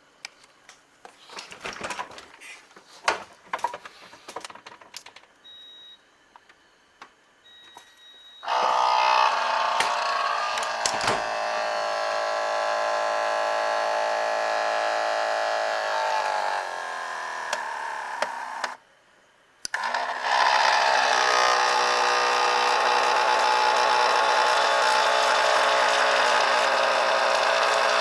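Abnormal noise from an 11-year-old refrigerator's ice-making compartment: a loud, steady buzzing drone with a fixed pitch. It starts about eight seconds in, stops for about a second past the middle, then starts again. Before it there are scattered clicks and knocks and two short high beeps.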